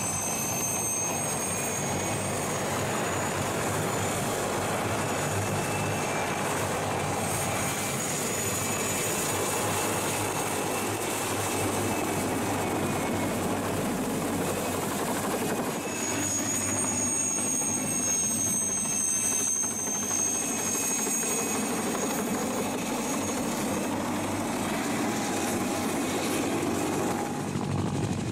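Mil Mi-2 helicopter flying low overhead: steady rotor noise with the high whine of its twin turboshaft engines, which fades for several seconds and comes back about halfway through.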